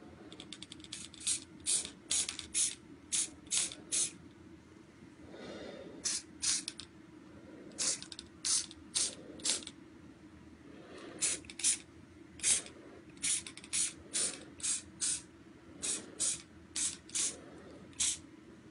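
Aerosol spray-paint can sprayed in many short hissing bursts, two or three a second, in clusters with short pauses between.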